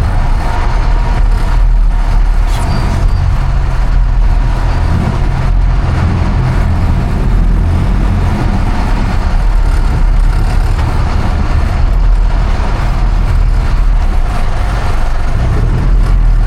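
Sportfishing boat's inboard engines running steadily under way, a loud, even low rumble with wash and wind noise over it.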